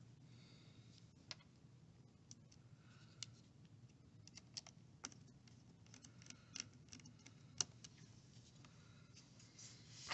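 Faint, irregular small clicks and light taps from screwdriving and handling a laptop lid: a hand screwdriver seating the small screws of the display panel, and the plastic and metal frame being pressed and moved. The sharpest clicks come about three-quarters through and right at the end.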